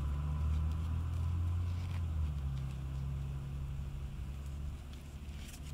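A low, steady engine drone, like a motor vehicle running nearby, whose pitch drops slightly about two seconds in. A few faint clicks come near the end.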